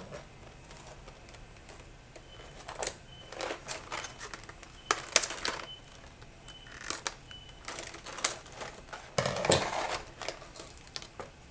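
A boxed set of plastic keycaps being opened and handled: irregular sharp plastic clicks and clacks, with a longer rustle of packaging about nine seconds in.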